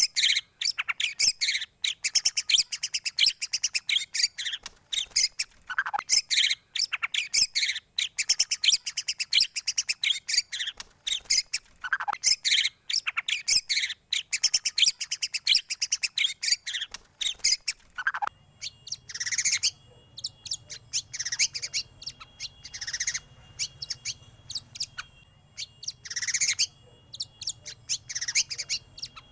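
White-rumped shama (murai batu) song played as a bait recording: fast, dense chattering trills and chirps, changing about eighteen seconds in to separate whistled phrases with short downward sweeps, over a faint steady tone and low hum.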